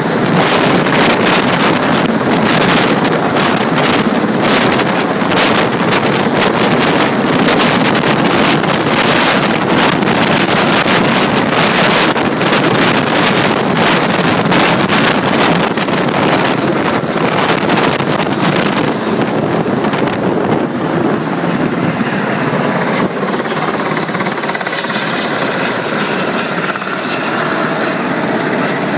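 Black Hawk helicopter hovering close overhead: the rotor blades thud rapidly while the rotor downwash buffets the microphone. After about twenty seconds the sound eases and smooths out as the helicopter moves away.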